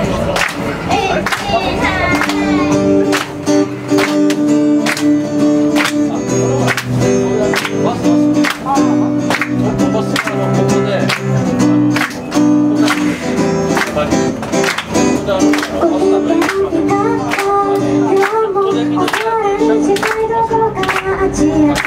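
Acoustic guitar strummed in a steady rhythm, with audience hand claps about twice a second keeping time. A woman's voice sings along at the start and again toward the end.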